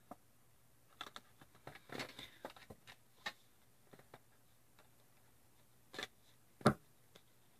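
Tarot cards being shuffled and handled: faint scattered flicks and light clicks of card stock, with one louder tap shortly before the end.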